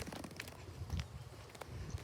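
Footsteps of a person walking, a few soft steps with light clicks between them.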